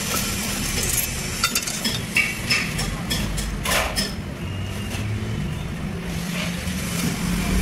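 A handful of light metallic clicks and taps as a steel rule and a square are set down and shifted on a welded steel plate, bunched between about one and four seconds in. A steady low hum runs underneath.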